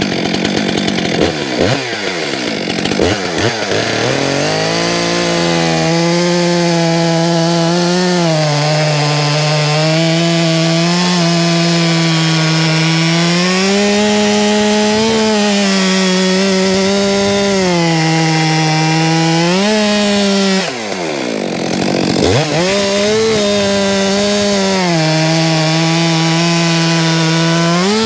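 Stihl two-stroke chainsaw revved up to full throttle and cutting through a log with a freshly sharpened chain, the engine pitch sagging and recovering as the chain bites. About 21 seconds in the revs drop sharply, then climb back up as cutting goes on.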